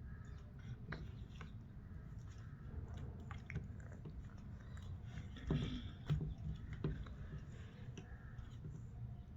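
A person chewing food close to the microphone, with many small wet mouth clicks. The loudest bites come a little past halfway.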